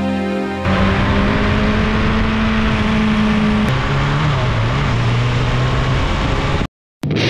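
1987 Suzuki GSX-R1100's inline-four engine running on the move. Its pitch holds steady, then drops lower and wavers about halfway through as the bike eases off. The sound cuts in abruptly after a moment of music and cuts out briefly near the end.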